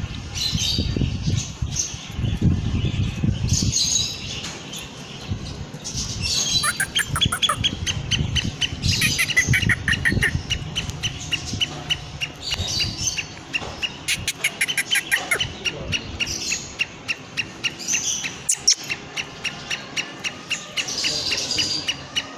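White-plumaged black francolin in a cage calling: harsh call phrases repeated every few seconds, strongest from about a quarter of the way in. A fast, steady chirping of about three notes a second runs behind the calls in the second half.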